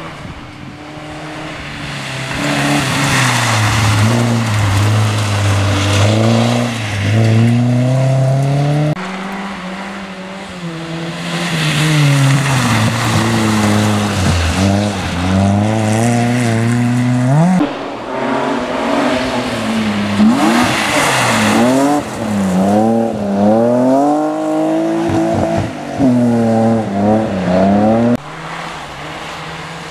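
Rally cars at speed on a gravel stage, one after another, engines revving up and falling back as they brake, shift and accelerate through the corner, over a hiss of tyres on loose gravel. The sound changes abruptly a few times where separate passes are cut together.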